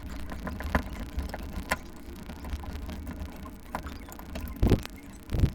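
Phillips screwdriver backing out the old door knob's mounting screws: scattered small metallic clicks and ticks, with two heavier knocks near the end.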